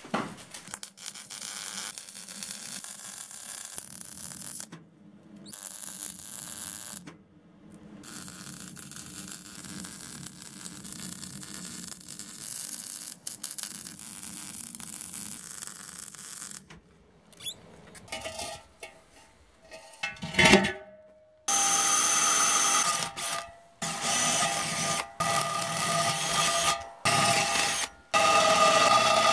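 MIG welder hissing and crackling as it welds steel, in a few cut-together stretches. Then, about two-thirds of the way in, a cordless drill boring into the steel wheel hub: a louder steady motor whine that stops and starts several times.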